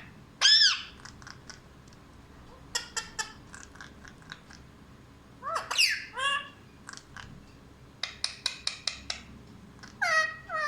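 Pet parrot giving short calls that glide up and down, a few at a time, with two runs of quick clicks in between.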